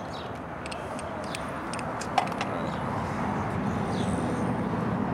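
A few light clicks and taps from handling a transmission cooler and its metal hose clamp, the sharpest about two seconds in, over a steady outdoor background hum.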